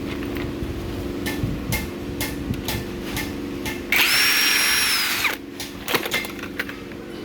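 Power drill running in one short burst of about a second, its whine rising, holding and dropping away, over a steady low hum and scattered clicks and knocks.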